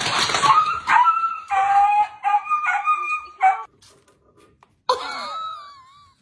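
A husky-type dog giving a quick run of about six short, high, pitched barks and yips. After a short pause, a single wavering call that glides up and down comes near the end.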